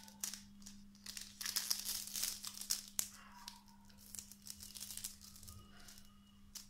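Thin plastic wrapper crinkling in quick crackles as it is twisted around a candy lollipop and wound with tape, busiest in the first three seconds and sparser after. A faint steady low hum runs underneath.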